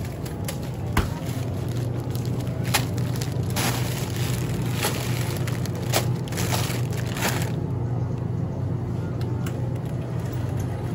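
Wire shopping cart rolling with a steady low rumble and a few sharp knocks, while plastic-wrapped groceries rustle and crinkle as they are shifted in the cart; the rustling stops about three-quarters of the way through.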